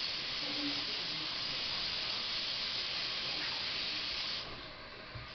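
Tap water running for hand washing, a steady hiss that stops about four and a half seconds in.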